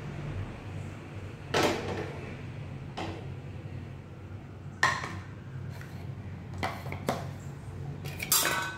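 Metal kitchenware being handled: about half a dozen sharp clinks and knocks of a spoon, steel lunch-box bowls and an aluminium pressure cooker, the last one ringing briefly near the end, over a low steady hum.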